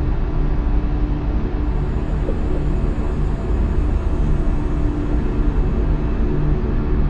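Ambient soundtrack drone: a steady deep rumble with faint held tones above it.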